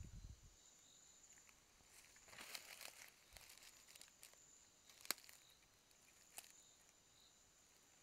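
Near silence with a faint steady high whine, broken by brief rustling in dry leaf litter about two and a half seconds in and a single sharp click about five seconds in.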